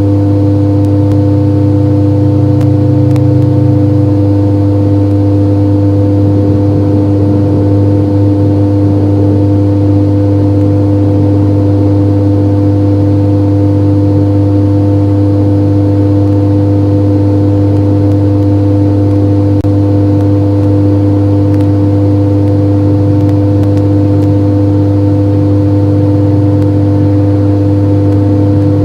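A loud, steady hum made of several fixed pitches, unchanging throughout, over a faint hiss; no owl calls stand out.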